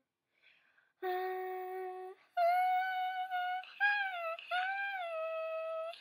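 A person humming high-pitched tones. After a near-silent first second comes one held note for about a second, then a higher note that carries on, dipping and sliding up and down.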